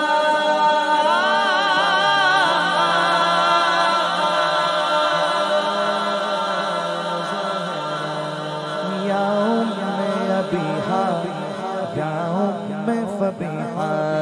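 A male naat reciter sings a long, wavering melismatic phrase of an Urdu devotional chant, with backing singers holding a low drone underneath.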